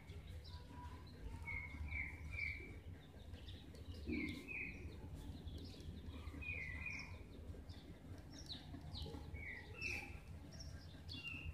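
Faint small birds chirping in the background: many short, repeated chirps, over a low steady hum.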